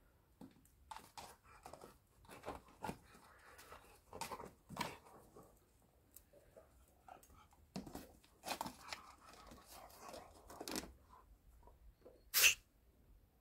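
A husky snuffling with its nose in the grass and at a ball, in irregular short sniffs and rustles. About a second before the end comes one short, much louder snort.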